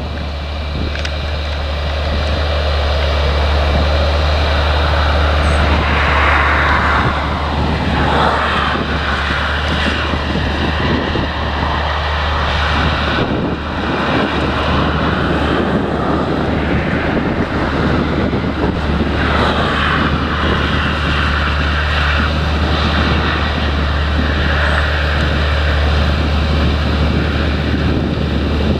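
Fendt 930 Vario tractor's six-cylinder diesel engine running steadily under heavy load as it pulls a multi-furrow reversible plough through heavy soil, its sound swelling at times.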